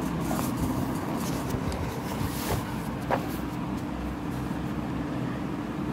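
A notebook page being turned, then a ballpoint pen moving on paper, giving a few soft clicks and rustles over a steady background hum.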